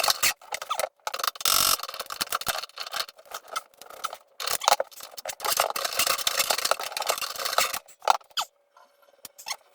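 Irregular clattering, knocking and scraping of hard objects being handled, with a brief louder rush about one and a half seconds in. It stops abruptly about eight and a half seconds in.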